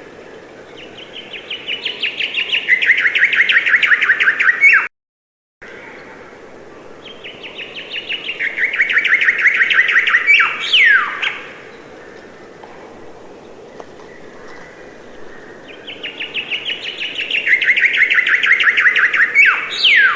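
A songbird singing the same song three times, several seconds apart: a fast trill of short notes that steps down in pitch, ending in a quick downslurred note. The sound cuts out completely for under a second just after the first song.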